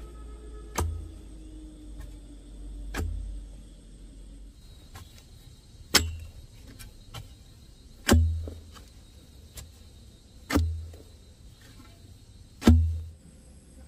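Six heavy blows struck about every two seconds, each a sharp crack with a deep thud, the last four loudest: a tool striking wood during building work.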